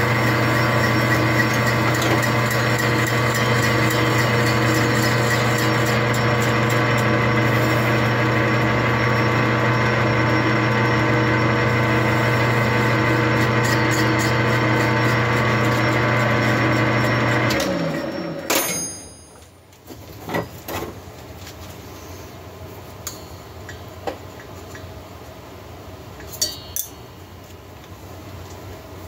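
Metal lathe running with a steady hum as its chuck turns a chainsaw cylinder. About two-thirds of the way through it is switched off and winds down, dropping in pitch, and after that come a few sharp clicks and knocks.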